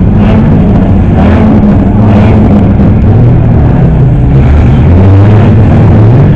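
Several banger-race cars' engines running and revving together, loud, with the pitch rising and falling as the cars race and push against each other.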